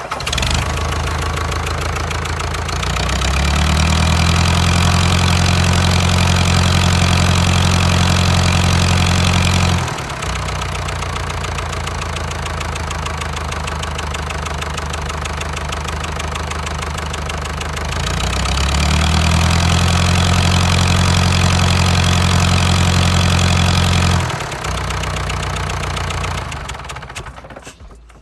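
Diesel engine test-run after its injection pump is set. It catches, is revved up and held, drops back to idle, is revved and held again, then winds down and stops near the end.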